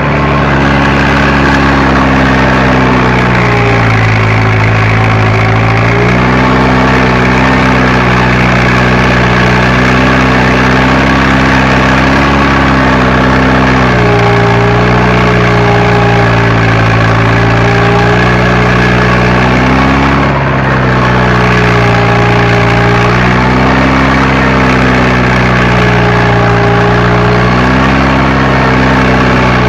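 Fiat Agri tractor's diesel engine running under load while working a seedbed, heard from inside the cab. Its pitch sags and picks back up several times as the load changes.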